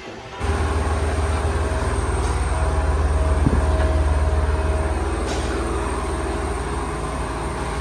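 An engine running at idle with a steady low rumble, coming in abruptly about half a second in.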